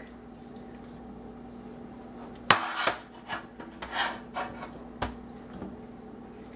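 Knocks and scrapes as a spitted raw chicken is handled and turned on a metal baking sheet, the rotisserie spit rod and forks clattering against the tray. The loudest is one sharp clank about two and a half seconds in, followed by a few lighter knocks and a click about five seconds in, over a faint steady hum.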